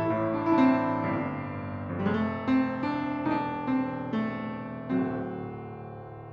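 1988 Yamaha P112 upright piano played: melody notes struck over sustained chords. About five seconds in, a last chord is struck and left to ring and fade.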